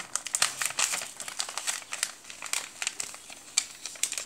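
Sheets of A4 paper rustling and crinkling in quick, irregular crackles as they are handled and folded.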